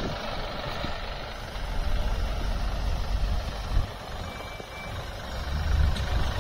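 Engines of a line of stationary cars and SUVs idling, with one brief high beep about four and a half seconds in.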